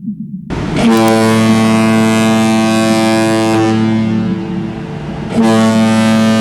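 A ship's loud, low, steady droning tone with many overtones cuts in suddenly about half a second in, over a faint low underwater sound. It drops back around four seconds and comes back at full strength just after five seconds.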